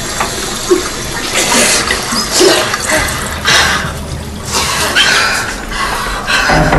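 A girl sobbing with ragged, gasping breaths, about one a second.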